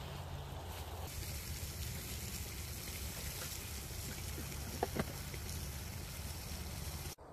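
Outdoor wind noise: a steady hiss and low rumble on the microphone, with a couple of brief high squeaks about five seconds in.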